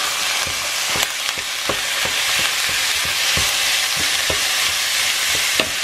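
Minced meat sizzling as it fries in a pan on full heat, with a utensil knocking and scraping against the pan at irregular intervals, about two or three times a second, as the meat is broken up.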